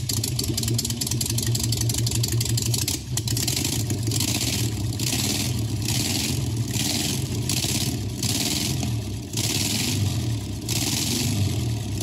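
A 1971 VW bus's air-cooled flat-four engine running with a steady low drone. In the first few seconds there is a rapid ticking, and from about four seconds in a regular hiss pulses roughly once a second.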